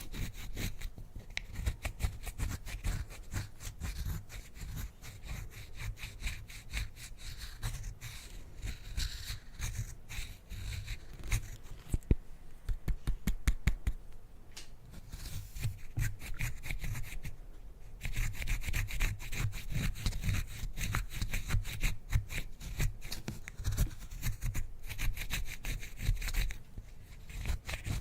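Slime being squished and worked by hand: a continuous stream of rapid, sticky clicks and crackles.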